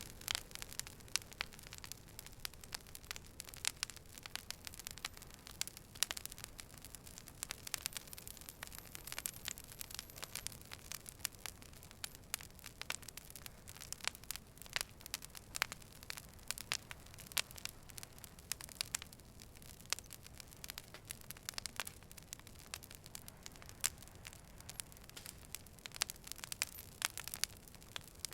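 Wood fire burning, with frequent irregular sharp crackles and pops over a low, steady hiss.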